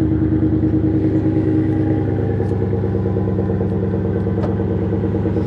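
Ford F-150's engine idling steadily through its Flowmaster exhaust, heard from behind the truck. A faint click comes about four and a half seconds in.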